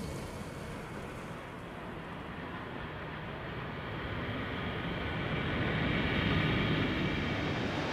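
Jet aircraft engine noise: a continuous rushing sound with a faint whine in it, swelling to its loudest about six seconds in and easing slightly after.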